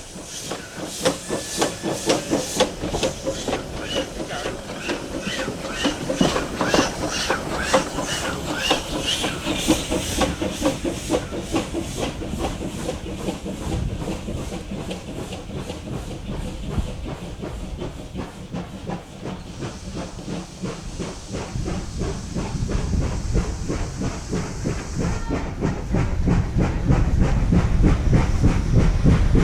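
GWR 4110, a Great Western 5101-class 2-6-2 prairie tank steam locomotive, pulling away with its exhaust beating in quick, even chuffs over hissing steam. Near the end a low rumble of the train builds and grows louder.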